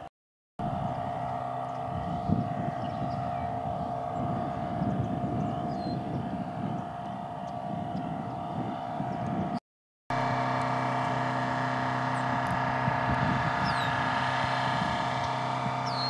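A steady engine hum holding a constant pitch, with wind rumbling on the microphone in the first part and a few faint high bird chirps in the second. The sound drops out to silence twice, briefly: just at the start and about ten seconds in.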